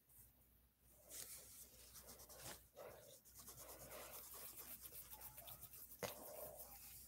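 Faint scratching of a crayon rubbed quickly back and forth on paper over a clipboard while coloring in, starting about a second in, with a sharp tap about six seconds in.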